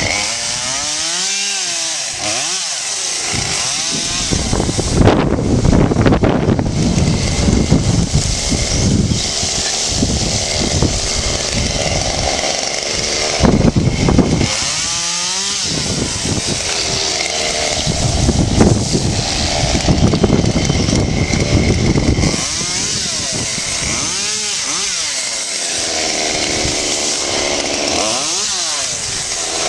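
Chainsaw running and cutting wood. Its pitch rises and falls several times as the throttle is opened and eased, between longer stretches of steady cutting.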